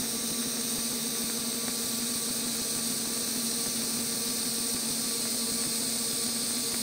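TIG welding arc on a stainless steel exhaust manifold runner: a steady buzzing hiss that holds even throughout.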